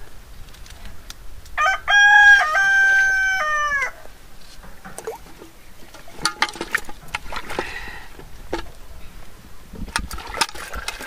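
A rooster crows once, a cock-a-doodle-doo of about two seconds that ends on a falling note. Light knocks and clicks follow later.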